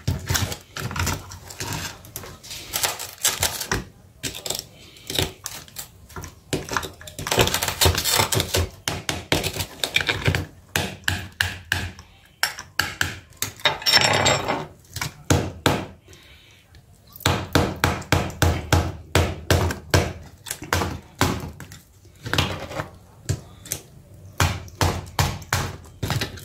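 Hands taking a smartphone apart with metal nippers and a pry tool: a long run of quick clicks, snaps and knocks of metal on plastic and cracked glass, with a quieter pause a little past the middle.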